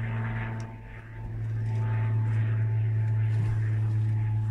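A steady low mechanical hum, like an engine or motor running nearby. It dips briefly about a second in.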